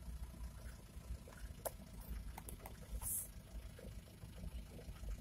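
Low rumble of a Chevrolet LUV 4x4 pickup moving slowly over a rough dirt track, heard inside the cab, with scattered sharp clicks and rattles.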